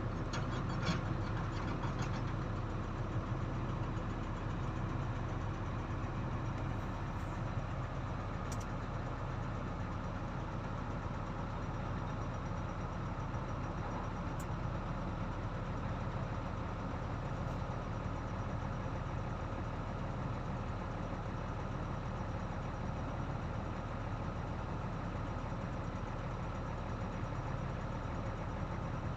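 Heavy diesel engine idling steadily, a low even hum with no revving.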